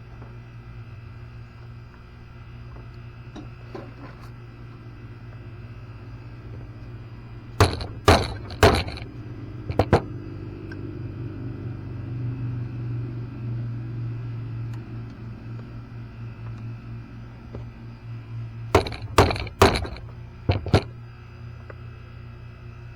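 Sharp clinks and knocks of metal tools on metal parts in two short bursts, about four strikes and then about five, over a steady low hum.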